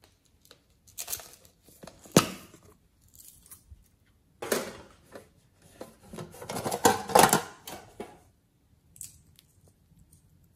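A small tin box with a metal clasp being handled and opened: a sharp click about two seconds in, then a run of metallic clicking and scraping from about four to eight seconds in.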